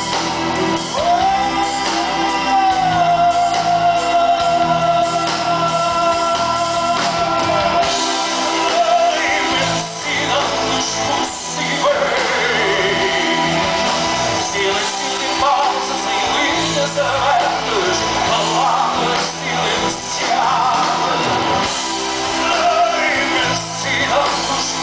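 Live rock band playing: electric guitars, bass and drums, with a male singer singing over them.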